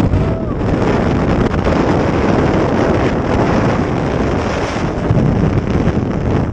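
Strong wind rushing and buffeting over the camera microphone as the jumper falls fast down the tower on a guide cable, a loud, steady roar of air.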